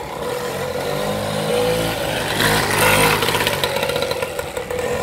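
Small two-stroke moped engine revving as the moped is ridden off. The pitch rises and it is loudest about halfway through, then it runs on more evenly.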